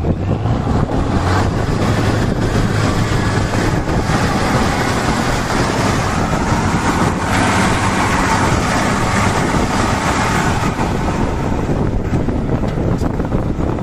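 Tatra 813 trial truck's diesel engine working hard under load as it climbs a steep, brushy slope. A deep engine drone for the first few seconds gives way to a louder, rushing noise in the middle.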